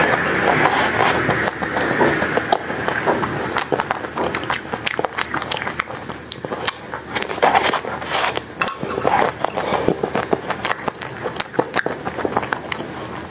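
Close-up chewing and crunching of a chocolate-and-nut coated ice cream bar: the crisp coating cracks in many small, quick crackles, with wet mouth sounds.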